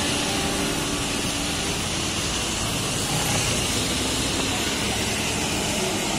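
Steady road traffic on a rain-wet road: motorcycles and cars passing, with a constant hiss of tyres on wet asphalt.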